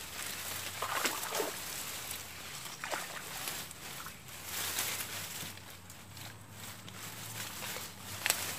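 Shallow swamp water sloshing and splashing as a person wades and works in it by hand, with sharper splashes about a second in, around three seconds, and near the end.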